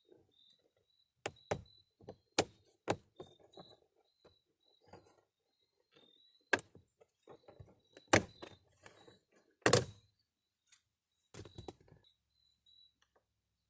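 Plastic interior door trim being pried and popped off a car door panel: a series of sharp clicks and snaps as the retaining clips let go, the loudest near the middle and about ten seconds in, with softer handling and rustling of the plastic between them.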